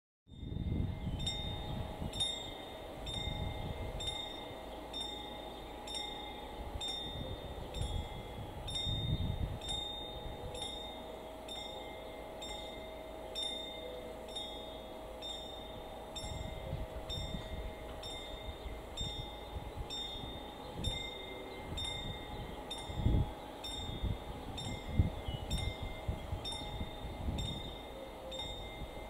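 Level-crossing warning bell of a WSSB barrier installation ringing evenly, about one stroke a second, the signal that the barriers are about to close for an approaching train. Gusts of wind buffet the microphone now and then.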